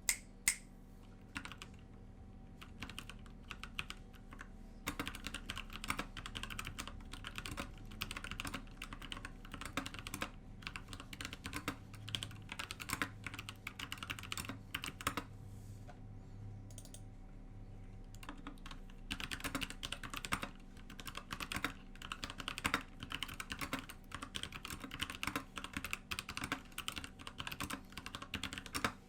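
Typing on a newly built SK61 mechanical keyboard: rapid key clicks in long bursts, with a pause of a few seconds past the middle.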